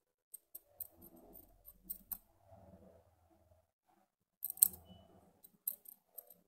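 A pointed metal tool scraping and picking at the seam of an old tire inflator's rusted metal housing: irregular small scratchy clicks with faint handling rustle, and one sharper click about four and a half seconds in.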